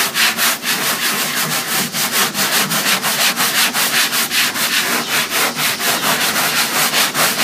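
Hand sanding of a painted, texture-coated particle board furniture top with a sanding pad: quick, even back-and-forth rubbing strokes, several a second. The sanding wears through the top coat to show the paint coat beneath.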